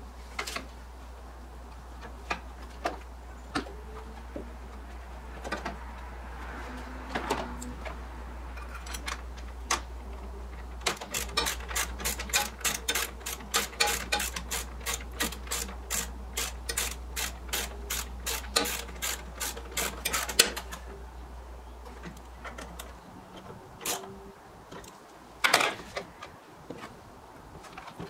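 A hand ratchet clicking in a quick, even run of about three clicks a second for roughly ten seconds in the middle, with scattered clicks and knocks of plastic intake parts being handled before and after. A steady low hum underneath stops near the end.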